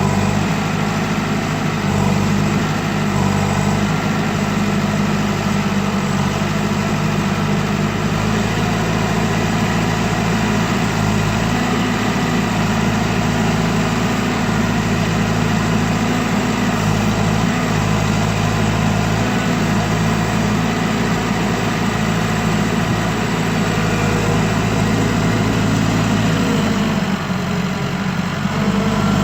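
Case 650L crawler bulldozer's diesel engine running steadily at a low, even speed, with a short dip in its low tone near the end.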